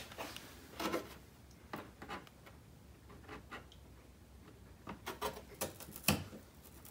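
Hands handling a flexible plastic mud flap against the wheel-well liner: scattered light rubbing and clicking, with a sharper click about six seconds in.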